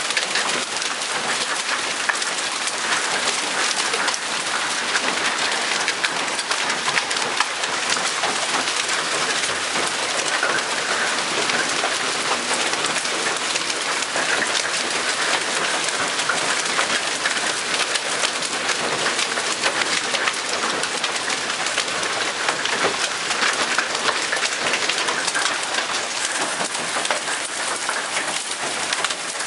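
Hail and heavy rain pelting down, a steady dense hiss made of countless small ticks of stones striking the ground.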